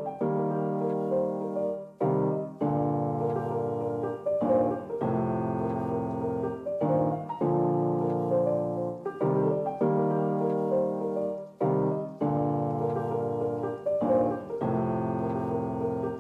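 Background music: a piano-led instrumental with chords changing about every two and a half seconds.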